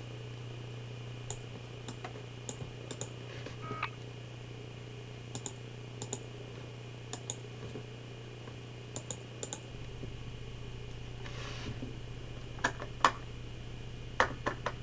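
Steady low electrical hum picked up by a Logitech webcam's built-in microphone, with scattered light clicks throughout and a few louder clicks near the end.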